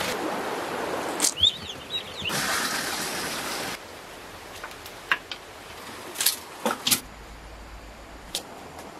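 Outdoor sounds in separate stretches. A steady rushing hiss breaks off abruptly twice, with a few short bird chirps between the two stretches. After that come a handful of sharp clicks and taps over a quieter background.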